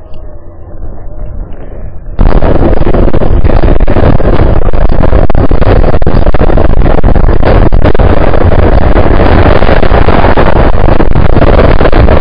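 Steady rushing wind and road noise on the microphone of a camera carried on a moving bicycle. It jumps suddenly much louder about two seconds in and then stays very loud.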